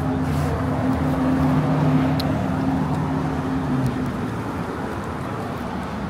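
A motor vehicle passing on the street: its engine hum grows to its loudest about two seconds in and fades out by about four seconds, over steady traffic noise.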